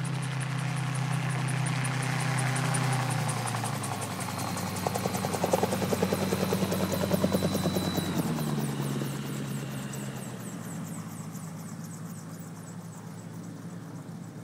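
Autogyro's engine and rotor running, with a rapid even chopping pulse that is loudest about five to eight seconds in. The pitch drops around eight seconds in and the sound then fades away.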